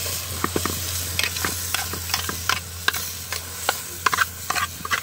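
Food sizzling in a pan while it is stirred: a steady hiss broken by irregular clicks and scrapes of a utensil against the pan.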